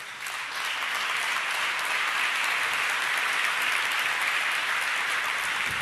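Audience applause, swelling over the first second and then holding steady.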